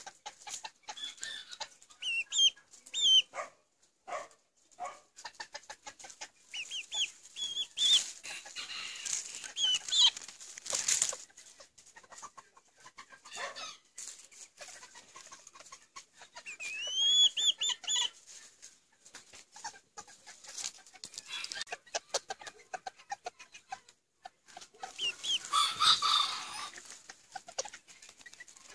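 Malaysian Serama bantam chickens clucking and calling, with short high chirps scattered throughout. Near the end a rooster crows once, the loudest sound here.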